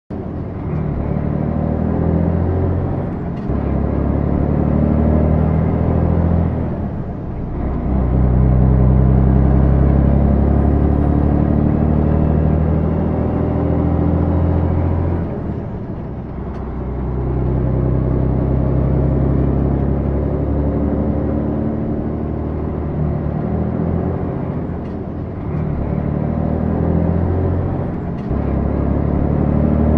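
Heavy truck engine running under load, its note dropping away and picking up again about five times as the gears are shifted.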